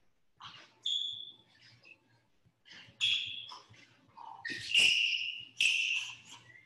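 Several short, high squeaks from sneaker soles on a wooden floor as a boxer steps and pivots while shadow boxing, some with a light footfall thud, the loudest about five seconds in.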